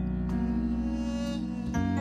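Soft, slow worship-band music playing under a time of prayer: held chords over a low bass note, with a chord change about a third of a second in and another near the end.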